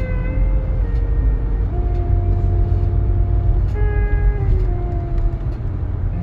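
Steady low rumble of a car's engine and tyres heard from inside the cabin while driving, with slow held notes of music over it.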